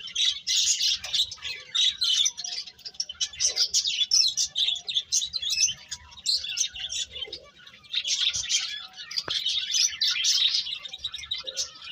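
Small birds chirping: many short, high chirps overlapping in a dense, continuous chatter, as from several birds at once.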